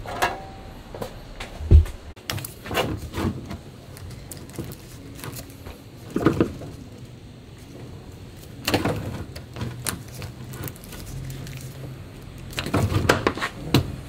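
Scattered knocks, clatter and rattles of tools and dust-hose fittings being picked up and set down, with one heavy low thump about two seconds in and a busier run of rattling near the end.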